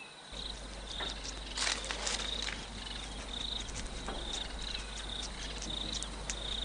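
Cricket chirping in short repeated chirps, a little more than one a second. A few sharp clicks and crackles come about two seconds in, over a low steady hum.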